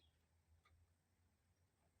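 Near silence: a faint low hum with a couple of soft clicks.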